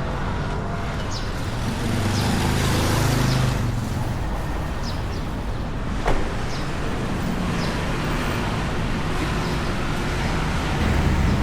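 Road traffic noise: a steady rumble of passing cars, with a vehicle passing closer and louder a couple of seconds in. A single sharp click comes about halfway through.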